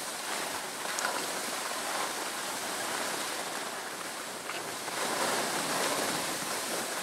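Steady rushing hiss of skiing: skis sliding over snow and wind across the camera microphone, growing a little louder about five seconds in.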